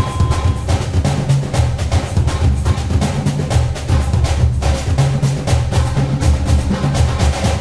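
Background music: a percussive drum track with a strong bass beat.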